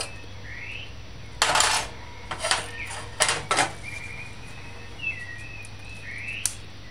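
Clinks and knocks of cookware: a utensil and a glass lid clattering against a stainless steel saucepan as the lid is set on, in several sharp strokes spread over a few seconds. Faint high chirps run in the background.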